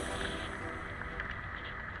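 Low, steady rumble of a motorbike running, with a few faint ticks.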